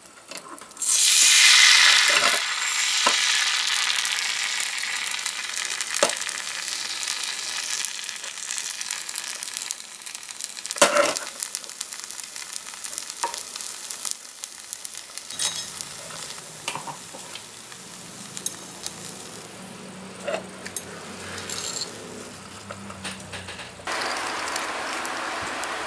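Crepe batter poured into a small cast-iron pan of hot oil: a loud sizzle breaks out about a second in and slowly dies down as it cooks, with a few sharp clicks of a metal utensil against a steel pot.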